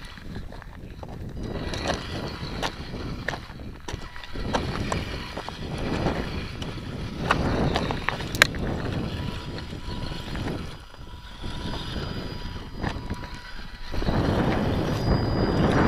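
Wind buffeting the microphone, with scattered sharp clicks, and growing markedly louder about two seconds before the end.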